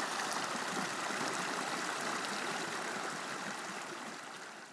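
Steady rushing sound of flowing water, like a stream, with faint scattered droplet ticks, fading out over about the last second.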